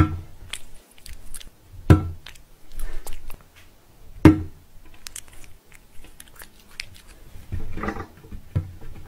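Cats taking food treats from a hand and chewing them: a run of quick, wet chewing clicks, with three sharper, louder clicks in the first half and a denser bout of chewing near the end.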